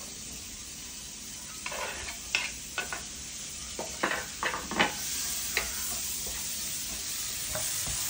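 Freshly added sliced onions sizzling in hot butter and oil in a non-stick frying pan: the start of sautéing. A wooden spatula stirs them, scraping and tapping against the pan several times in the first half.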